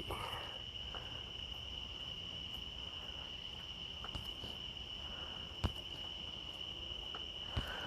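A steady, high-pitched insect trill, like crickets, continuing without a break. There is a single faint click about five and a half seconds in.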